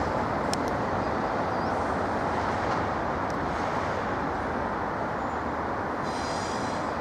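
Train running on the rails: a steady rumble and rush of wheels and carriages, with a few short high squeals, the longest one near the end.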